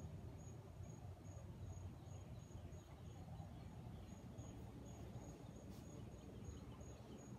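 Faint, short high chirps repeating evenly about two and a half times a second, over a low steady rumble.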